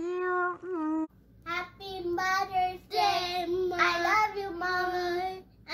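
Children singing unaccompanied: a young girl's sung phrase ends about a second in, then after a short gap a girl and a small boy sing together in long held notes.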